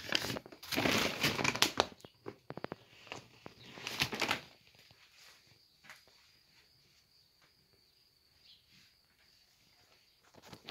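A heavy brown paper feed sack being handled: it crinkles and rustles in two bursts during the first half, the second about four seconds in, with scattered small clicks after that.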